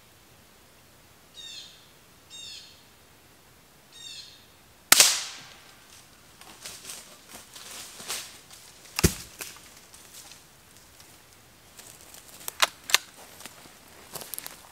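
Three short bird chirps, then a single shot from a suppressed small-game rifle about five seconds in, ringing out briefly through the woods. About four seconds later comes a second sharp impact with a deeper thump, then scattered light clicks and rustles near the end.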